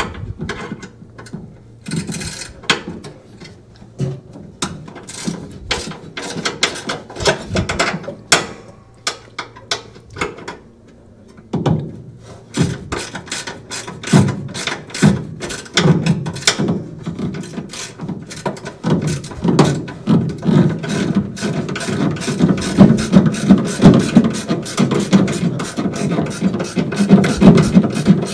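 Ratcheting wrench clicking as it turns a bolt on a Speed Queen washer's brake assembly, in scattered strokes at first, then in quick, steady runs of clicks from about halfway on.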